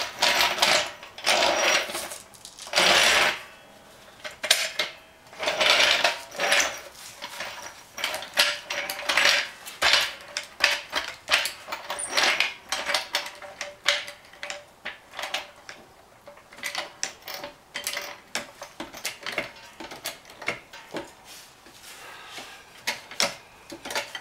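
Metallic clinks and rattles from a MotoMaster two-and-a-half-ton hydraulic floor jack and its steel handle as the jack is set under a car's side rail. A few louder clatters come in the first several seconds, then a run of lighter, irregular clicks.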